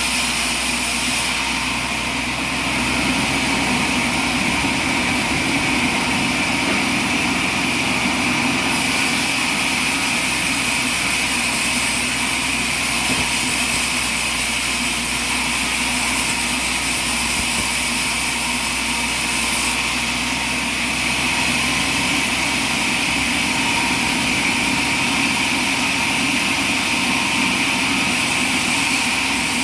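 Sawmill running steadily, its engine and saw making a constant mechanical drone with a high whine, shifting slightly in tone a few times.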